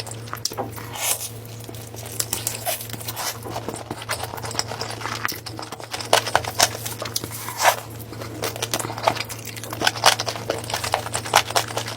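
Close-miked chewing of food, a dense run of short crisp clicks and crackles, over a steady low hum.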